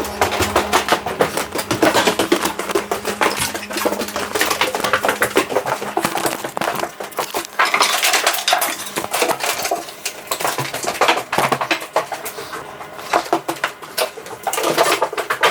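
Continuous irregular clinking and rattling of hard, metallic objects being handled, with a steady low hum under it that stops about six seconds in.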